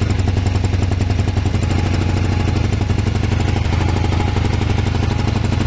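Kawasaki ER500's parallel-twin engine running steadily at idle. The owner blames the running on a misfire and wonders if it comes from a broken head gasket.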